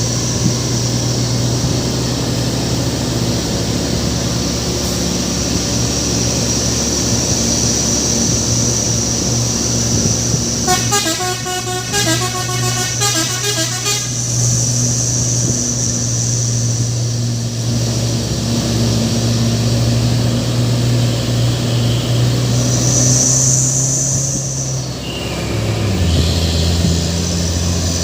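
Truck engine running steadily, with a telolet horn playing a quick run of changing tones for about three seconds near the middle. The engine note drops near the end.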